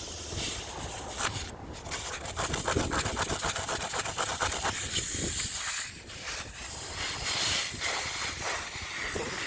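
Air hissing out of the puncture in an inflated car tyre while a plug-kit reamer rasps in and out of the hole to widen it for a plug.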